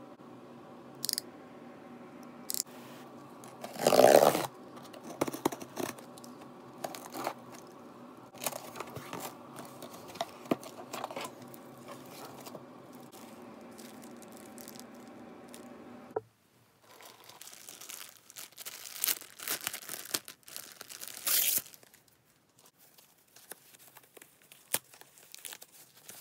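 Packing tape ripped off a cardboard shipping box about four seconds in, followed by the box flaps and a plastic bag being handled with scattered rustles and knocks. Later comes a run of crinkling and rustling as plastic and thin foam wrapping is pulled off a small zippered pencil case. A faint steady hum sits under the first part and stops suddenly partway through.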